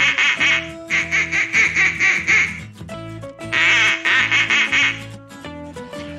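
Ducks quacking in fast runs of calls, three bursts in all, over background music.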